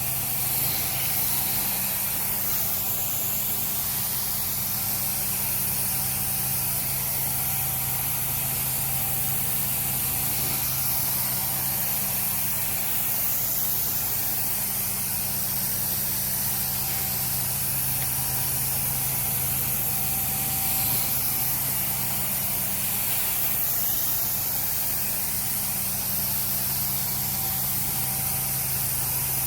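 Carpet-cleaning machine running steadily: a constant motor hum under a strong airy hiss of spray and suction.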